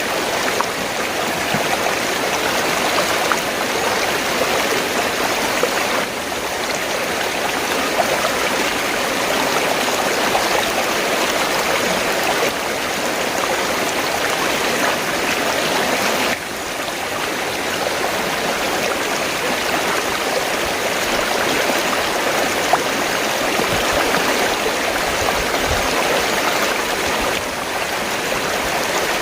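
River water flowing steadily, a continuous rushing and babbling with slight dips in level about every ten seconds.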